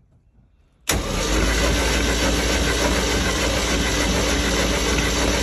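1987 Bayliner Capri's four-cylinder sterndrive engine, long seized and now freed, firing up about a second in on its first start in years and then running steadily.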